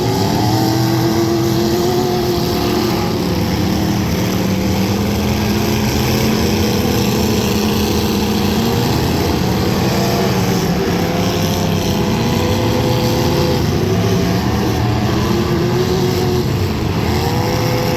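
Demolition derby car engines running loud and steady over a constant rumble, their pitch rising and falling as they rev and ease off.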